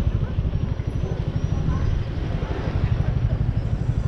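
Motorcycle being ridden slowly: a steady low rumble with wind buffeting the microphone.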